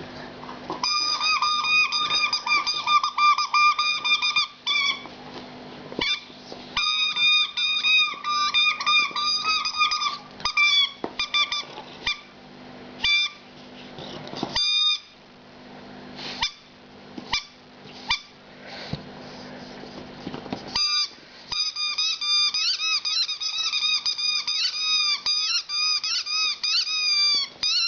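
Rubber squeaky toy being squeezed over and over: long runs of rapid, high-pitched squeaks, thinning to single spaced squeaks in the middle before the rapid runs start again.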